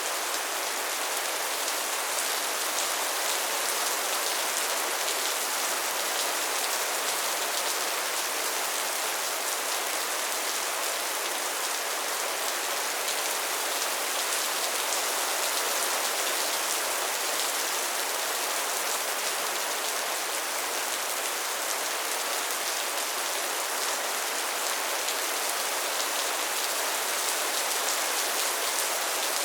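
Steady rainfall: an even, unchanging hiss of rain with fine drop taps, bright and high with little low rumble.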